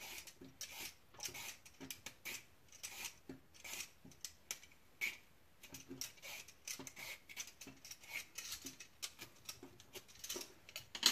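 A carrot being peeled with a vegetable peeler: quick, repeated scraping strokes, about two or three a second.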